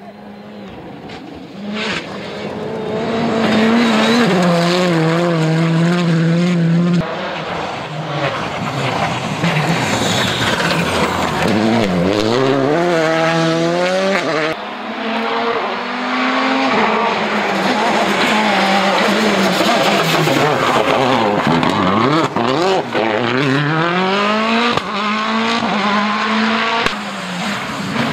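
Rally cars running flat out on a gravel stage, one after another: engines revving hard, pitch climbing and dropping sharply through quick gear changes as each car brakes and accelerates. The first car gets louder over the first few seconds as it approaches.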